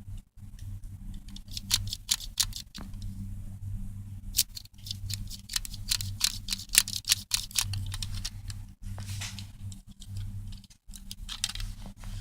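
Small plastic clicks and rattles of a Lego brick pistol being handled, coming irregularly throughout, over a steady low hum.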